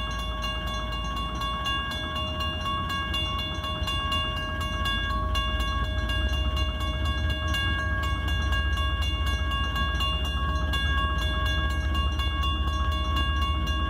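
W.C. Hayes mechanical crossing bell ringing with rapid, even strokes, about five a second, as the warning lights flash and the gate lowers. A low rumble builds beneath it from about five seconds in.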